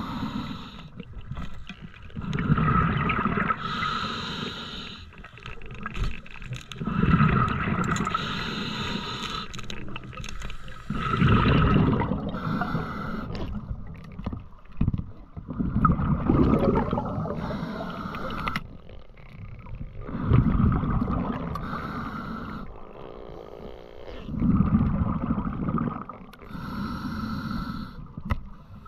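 A diver's rhythmic breathing heard underwater, a surge every three to four seconds, with gurgling water between breaths.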